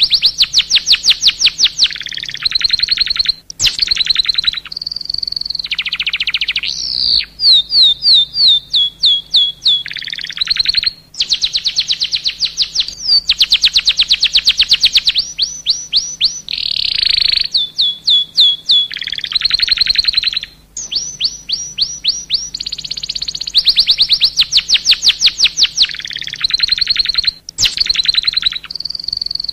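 Domestic canary in full, continuous song: phrase after phrase of fast, high-pitched trills and rolls, each a rapid run of repeated notes, with short breaks every few seconds.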